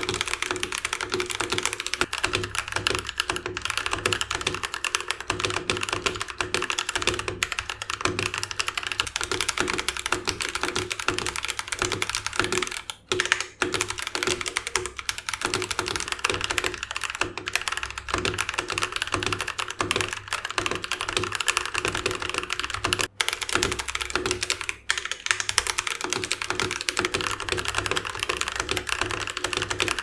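Fast, continuous typing on a mechanical keyboard with Cotton Candy switches under PBT keycaps, on an aluminium plate in a top-mount case: a dense run of keystroke clacks. The typing breaks off briefly about 13 seconds in and again around 23 and 25 seconds.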